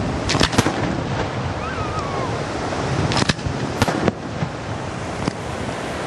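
Aerial firework shells bursting at night: a quick cluster of three sharp bangs near the start, another three around three to four seconds in and one more near the end, over a continuous rumble of the ongoing display.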